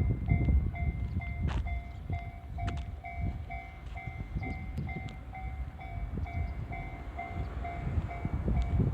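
Japanese railway level-crossing warning alarm ringing, a two-pitch electronic ding repeating about twice a second, over a low rumble with a few clicks.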